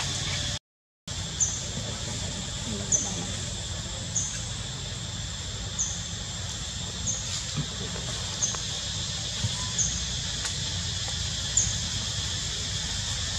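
Tropical forest ambience: a steady insect drone, with a short high chirp repeating about every second and a half. The sound drops out completely for half a second near the start.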